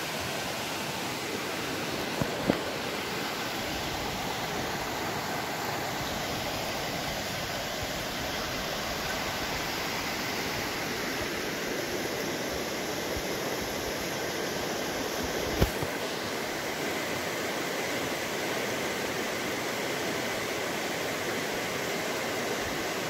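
Steady rain falling on a swollen, fast-flowing muddy river and the leaves over it, a continuous even hiss mixed with the rush of the water. A couple of sharp taps come about two seconds in and another just past the middle.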